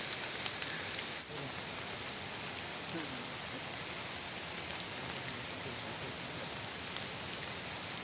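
Rain falling steadily, an even hiss with no breaks.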